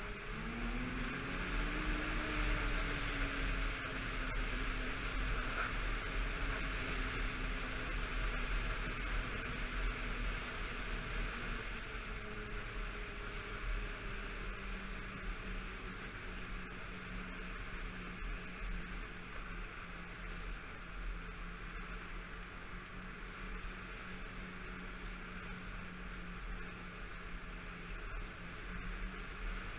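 Snowmobile engine running under way, its pitch rising over the first couple of seconds as it speeds up, then holding fairly steady under a constant rushing hiss.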